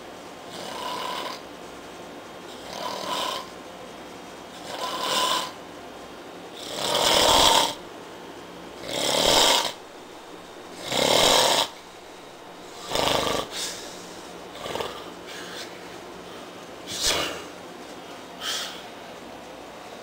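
A man passed out drunk, snoring loudly with about one snore every two seconds. The snores grow longer and louder toward the middle, then turn shorter and softer near the end.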